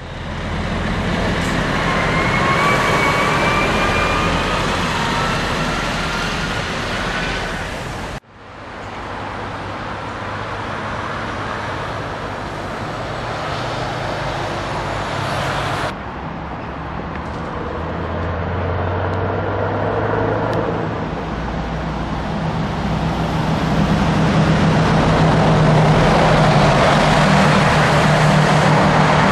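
Scania V8 diesel truck engines running on the road, in three takes with abrupt cuts about eight and sixteen seconds in. In the first take a rising whine rides over the engine. The deep engine note grows louder toward the end.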